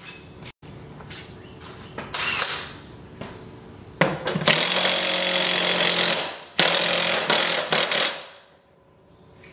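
Cordless impact wrench hammering on the nut of a mower deck's blade spindle pulley in bursts: a short one about two seconds in, then two longer runs of about two seconds each.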